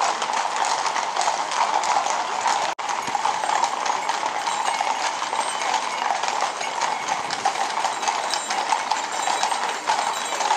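Shod hooves of many horses clip-clopping in a dense, continuous patter on an asphalt street, from a mounted cavalry escort and then a team of white carriage horses.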